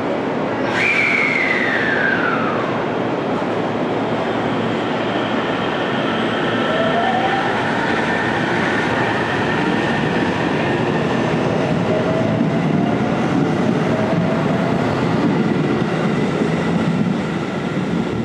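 JR 313 series electric multiple unit pulling out and gathering speed past the platform, with a steady rumble of wheels on rail. About a second in, a sharp onset is followed by a whine falling over two seconds. Later, fainter motor whines rise slowly in pitch as the train speeds up, and the sound drops off as the last car passes near the end.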